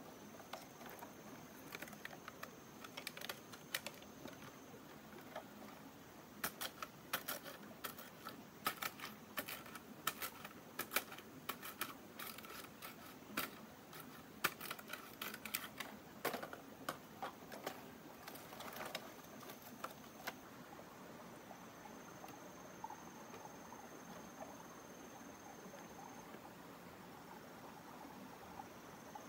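Machete chopping and splitting a bamboo pole: runs of sharp, quick knocks that come thickest in the middle and thin out after about twenty seconds. A thin, steady, high insect trill sounds at the start and again through the last few seconds.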